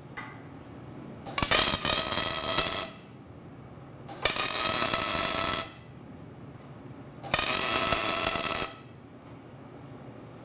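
MIG welding arc struck three times, each run a steady buzz about a second and a half long with short pauses between.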